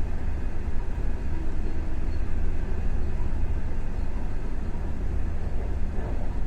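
Steady running noise of a passenger train's coach rolling along the track, heard from on board: an even low rumble with no distinct clicks.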